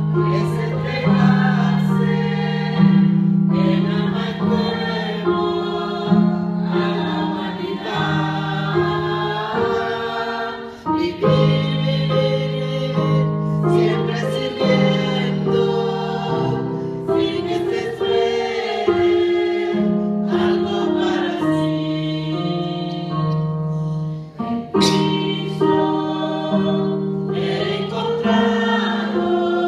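A small group of women singing a hymn together through microphones, in long held notes.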